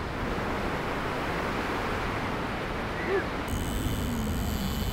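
Ocean surf breaking and washing up the beach, a steady rush of wave noise. About three and a half seconds in, the sound changes abruptly to a different surf-and-wind background with a faint high whine.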